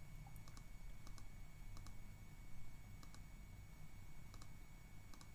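Computer mouse clicking: about ten faint, sharp clicks, some in quick pairs, spread over a low steady hum.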